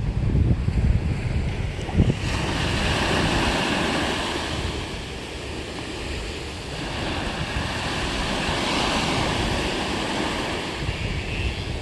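Sea waves breaking and washing ashore in slow swells, with wind buffeting the microphone near the start and a brief knock about two seconds in.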